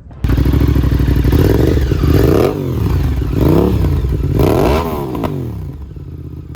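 Sportbike engine running, revved three times in quick blips that rise and fall in pitch, then settling back to a steadier idle.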